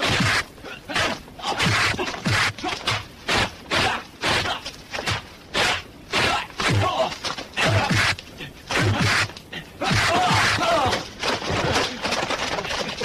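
Film fight sound effects: a rapid string of punch and kick impacts, about two a second, mixed with the fighters' shouts and grunts.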